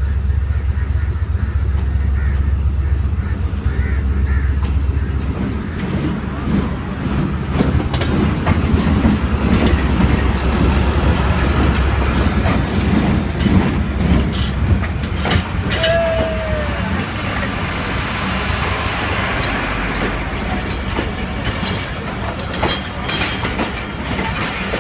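Diesel-electric locomotive and passenger coaches rolling slowly along the platform. The locomotive's engine drones deeply for the first few seconds, then the wheels clatter over the rail joints in a rapid run of clicks, with a short squeal about two-thirds of the way through.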